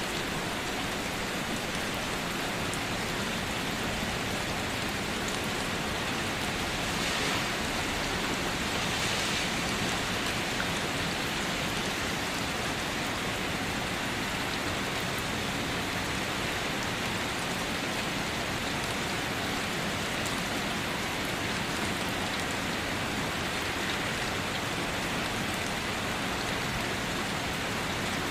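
Steady rain falling, a dense even hiss of drops, swelling slightly twice about seven and nine seconds in.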